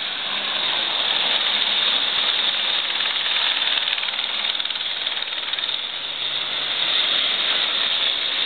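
Helicopter's rotor and engine running steadily as it circles low over the sea, under a continuous rush of breaking surf and wind on the microphone.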